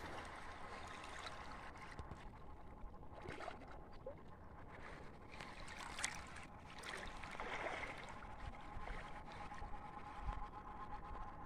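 Faint sloshing and lapping of muddy floodwater, with a faint steady hum under it.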